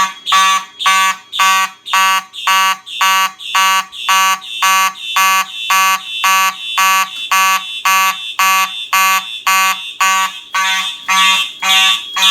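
Fire alarm horn sounding the march-time pattern, about two even blasts a second. This is 110 a minute rather than the standard 120, because of the panel's relays. A faint steady high-pitched tone runs underneath.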